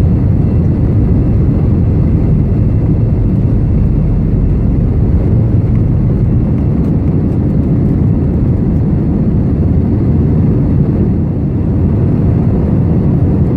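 Airbus A380 jet engines and airflow during takeoff, a loud, steady low rumble.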